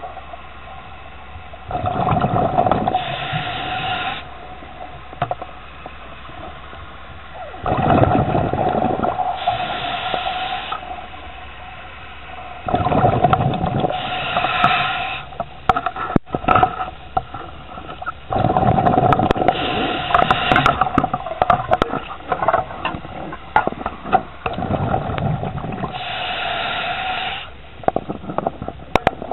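A scuba diver breathing through a regulator, heard underwater: about every five to six seconds a rush of regulator hiss and bubbling exhaled air, five breaths in all.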